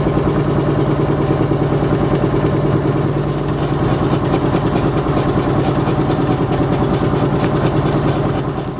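An engine running steadily at an even speed with a fast, regular pulse. It cuts off near the end.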